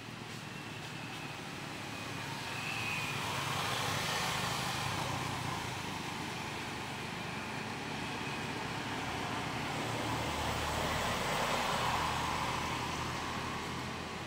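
Passing motor traffic: engine and road noise that swells and fades twice, first about four seconds in and again near the end, over a steady low hum.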